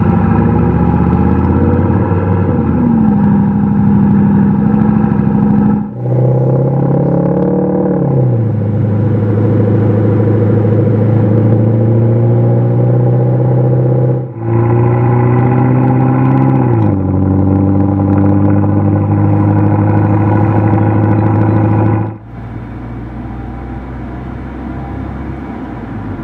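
ENGINEVOX electronic active-sound exhaust on a BMW 520d playing a synthesised German 4.0-litre twin-turbo V8 note while driving: a loud, deep engine drone whose pitch climbs and then drops abruptly, then holds steady, in three stretches cut together about 6 and 14 seconds in. About 22 seconds in it changes to the car's much quieter stock four-cylinder diesel sound.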